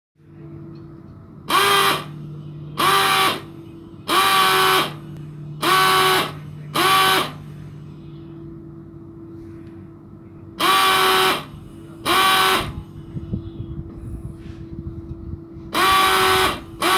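A gasoline pulse-jet fogging machine being started: its engine fires in nine short, loud, buzzing bursts of under a second each and cuts out again between them, not yet running on its own. A steady lower hum carries on between the bursts.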